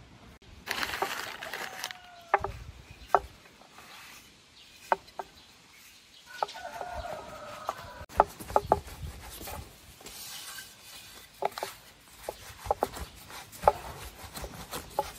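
Long, thin wooden rolling pin clicking and knocking against a wooden board as dough is rolled out thin, in sharp, irregular taps. Chickens cluck in the background about a second in and again around the middle.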